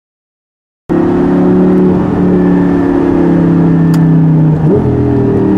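Lamborghini Gallardo LP560-4's V10 with an Armytrix aftermarket exhaust, heard from inside the cabin and running loudly at a steady engine speed. It cuts in abruptly about a second in. Near the end the pitch jumps up quickly and then settles back to a steady note.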